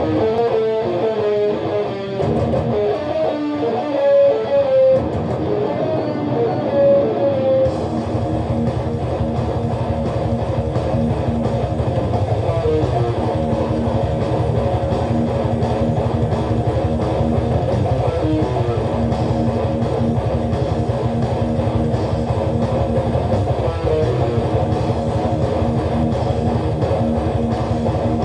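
Electric guitar playing thrash metal riffs. It starts with a line of single notes, then from about eight seconds in the sound thickens into a dense, fast riff with more bass.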